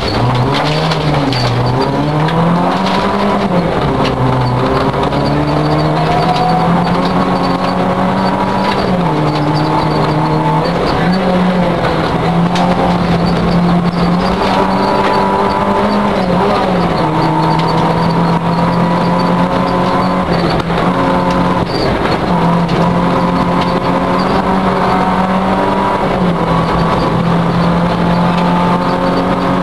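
Citroën Saxo rally car engine heard from inside the cabin at stage pace, revving up and dropping back in pitch again and again as the driver shifts gears and lifts for corners, over steady road and tyre noise.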